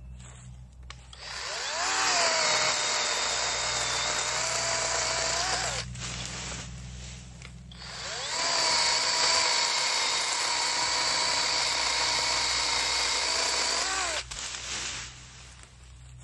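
Total 20 V cordless battery chainsaw running in two bursts of about five and six seconds, each spinning up with a rising whine and winding down at the end, as it cuts into a tree limb.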